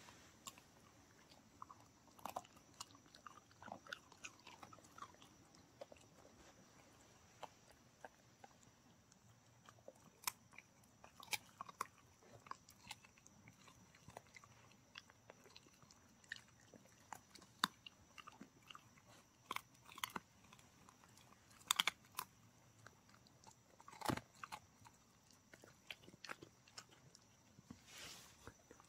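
A dog chewing dried beef lung jerky: faint, irregular crunches and bites, with a few louder crunches in the second half.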